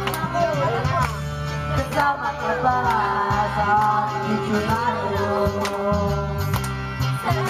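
A country-style song with a singing voice over acoustic guitar, played steadily throughout.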